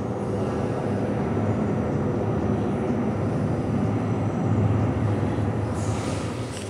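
Steady low rumbling noise with a faint hum underneath, and a brief hiss near the end.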